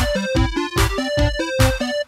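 Background music with a steady beat and a pitched melody.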